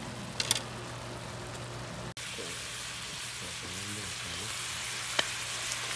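Whole squid with their ink sizzling steadily in a frying pan as the last of the braising water cooks off and they start to fry in olive oil. A couple of sharp clicks come about half a second in, and another near the end.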